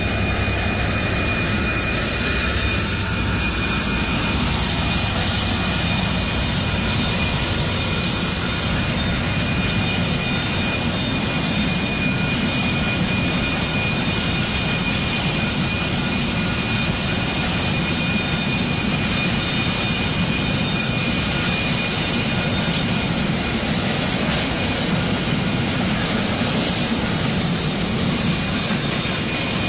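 Freight train hauled by a Class 66 diesel rolling past, its wagons making a steady, unbroken rumble with steady high-pitched tones over it.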